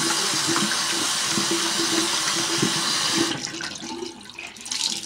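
Tap water running into a sink, wetting a cloth with cool water, shut off abruptly about three seconds in, followed by a few faint splashes.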